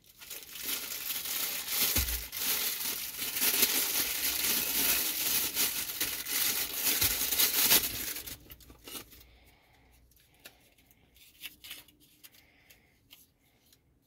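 Clear plastic wrapping crinkling and rustling as it is pulled open and off a phone holder, for about eight seconds. Then come a few scattered light clicks and rustles as the parts are handled.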